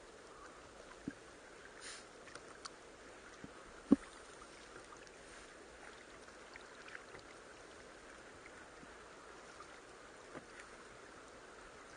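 Quiet ambience on a small wooden fishing boat: a faint, steady wash of water, with scattered small clicks and one sharp knock about four seconds in.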